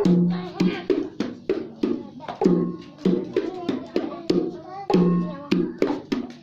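Children singing or chanting together with rhythmic hand claps, about three claps a second.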